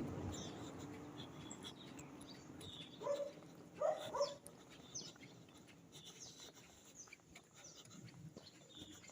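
A dog barks three times in quick succession, about three seconds in, while small birds chirp throughout.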